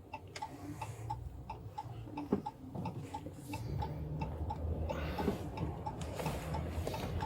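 Steady, rapid ticking of a vehicle's turn signal, about three clicks a second, over low engine and road rumble that grows louder in the second half.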